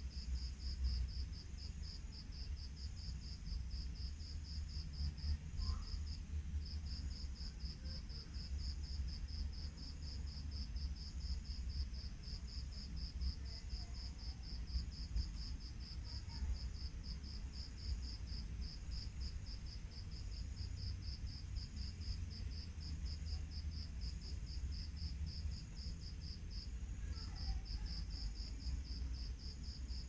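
Night insects, a cricket, chirping in a high, even pulsing trill that breaks off briefly twice, over a steady low rumble.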